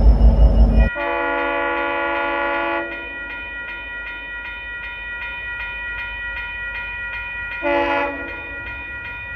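GO Transit train's multi-chime horn sounding: one loud blast of about two seconds, the chord then held on more faintly, and a short louder blast near the end. A loud low rumble cuts off about a second in, just as the horn starts.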